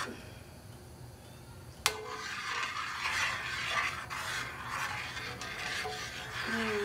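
A spoon stirring and scraping around the inside of a large stainless steel stockpot of sauce, in uneven strokes that start just after a sharp click about two seconds in.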